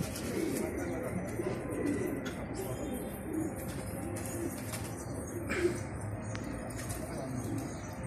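Domestic pigeons cooing over and over from the rooftop loft.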